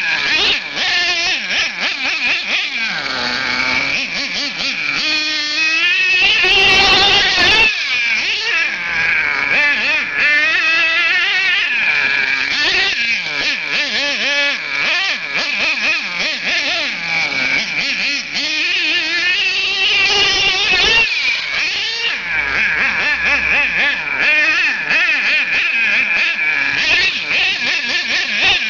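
Axial .28 two-stroke nitro engine of an HPI Savage X monster truck running hard, its pitch rising and falling as the throttle is worked. There is a louder burst of noise about seven seconds in.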